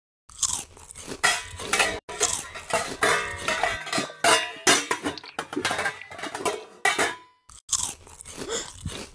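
Crunching and chewing of food being eaten greedily, in rapid uneven bites, with a brief pause near the end.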